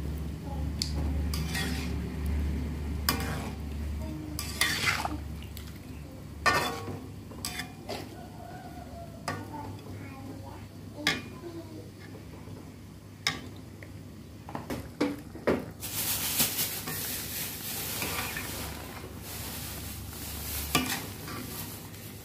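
Metal spatula scraping and knocking irregularly against an aluminium wok while stirring a simmering coconut-milk stew of tempe and green beans. A steady hiss joins in for about five seconds near the end.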